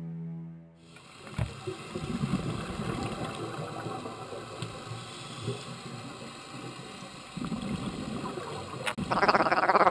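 Underwater sound picked up through a GoPro housing on a dive: a steady watery rush with irregular swells and crackles. Background music fades out at the start.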